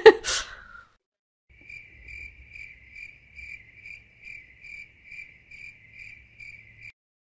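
Steady insect-like chirping at one high pitch, about two and a half chirps a second, over a faint low hum; it cuts off abruptly near the end.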